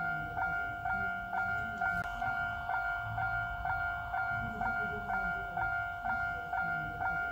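Japanese railway level-crossing warning bell ringing its steady 'kan-kan' ding, about twice a second. It is the signal that a train is approaching and the crossing is closed.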